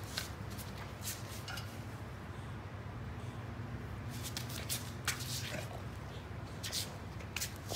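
Great Pyrenees puppy mouthing and licking a German Shepherd puppy in play: scattered wet smacks and short clicks, a cluster of them about four to five seconds in, over a steady low background hum.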